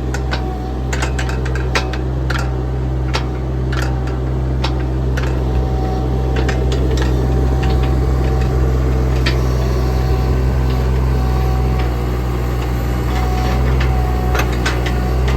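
A JCB 18Z-1 mini excavator's diesel engine running steadily, with frequent sharp metallic clicks and knocks from the working machine.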